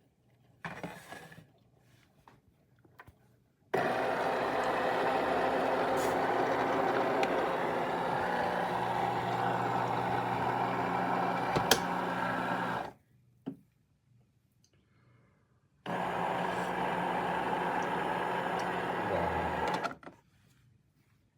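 A small electric motor runs steadily with a low hum for about nine seconds, stops, then runs again for about four seconds near the end.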